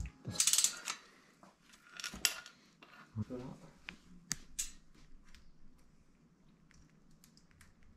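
Bicycle chain clinking and rattling as it is handled and fitted through the rear derailleur and its ends are joined, with a few short rattles and scattered small metallic clicks.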